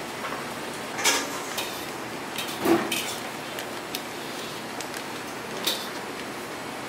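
Metal tongs clinking against stainless steel plates and trays while steaks are handled in plastic vacuum bags: a few sharp clinks, the loudest about two and a half seconds in with a short ring, over steady kitchen background noise.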